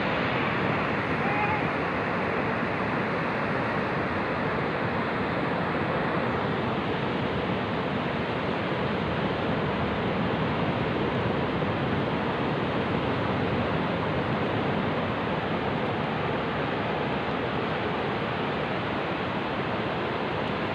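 Ocean surf breaking on the shore, a steady wash of waves.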